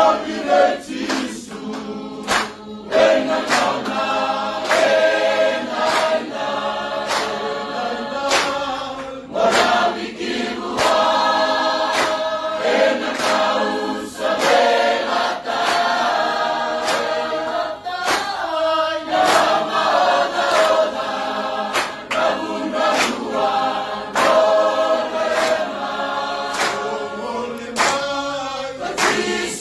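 Music: a choir singing over a steady percussive beat.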